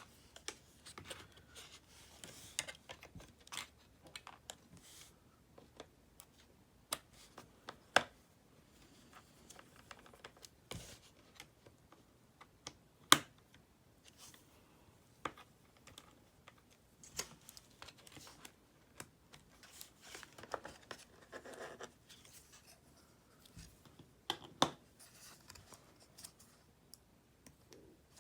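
Scattered small clicks, taps and light scrapes of hand-tool work on a MacBook Pro's hard drive bracket: a small Phillips screwdriver loosening the rail screws and the drive and parts being handled, with a few sharper clicks.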